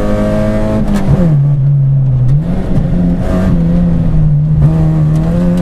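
Rally car engine heard from inside the cabin, running hard at high revs. About a second in the revs drop as the driver lifts off, then climb back a second later and hold steady, with a few brief knocks along the way.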